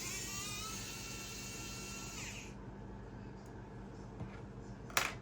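A small motor whirring at a high pitch for about two and a half seconds, rising at the start and then holding steady before cutting off. A sharp click follows near the end.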